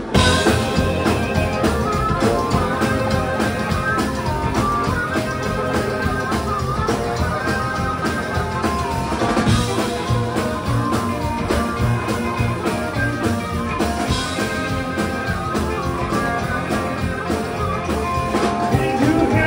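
Live blues band playing an instrumental intro: amplified harmonica leading with bending notes over upright bass, acoustic and electric guitars and a drum kit. The whole band comes in at once at the very start.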